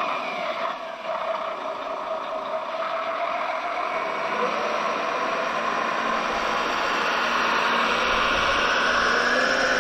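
Radio-controlled 6x6 scale model truck driving, its brushed electric motor and gearbox giving a steady mechanical whine that grows louder toward the end.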